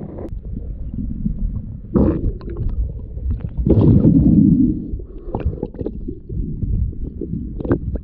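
Muffled underwater sound picked up by a diver's camera: low rumbling water movement with gurgling bubbles and scattered clicks, loudest for about a second near the middle.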